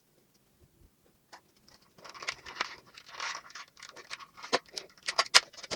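Toy packaging being handled: soft scratchy rustling starting about two seconds in, with quick sharp clicks and ticks near the end.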